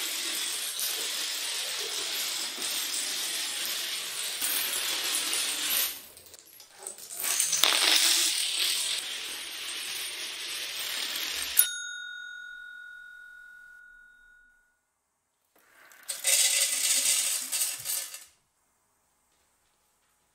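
A long run of dominoes toppling in a continuous clatter, with a short break about six seconds in, stopping abruptly just past halfway. A single ringing tone then fades away over about three seconds, and a second short burst of clatter follows a few seconds later.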